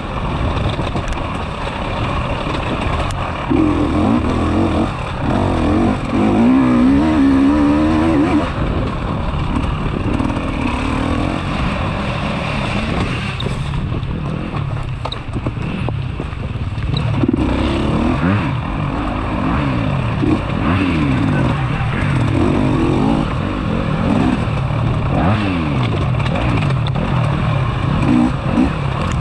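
Enduro motorcycle engines revving hard, their pitch rising and falling again and again with throttle and gear changes, in repeated loud surges.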